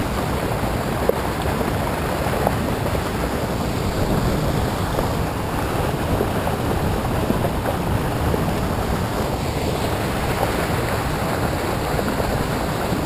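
Churning whitewater rushing out of a drainage pump's outflow into a canal: a steady, kinda loud rush of turbulent water.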